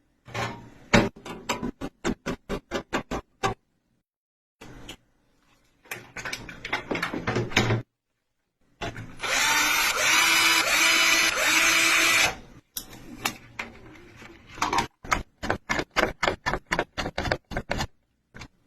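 Runs of sharp clicks, about four to five a second, in several separate bursts, with a small motor whirring steadily for about three seconds in the middle.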